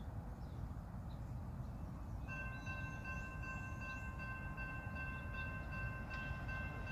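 Air horn of an approaching Union Pacific locomotive sounding one long, held chord of several notes, starting about two seconds in. It is sounded as the train nears a road grade crossing. A low, steady rumble runs underneath.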